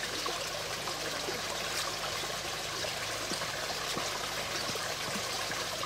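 A small stream trickling and running steadily, with a few faint clicks.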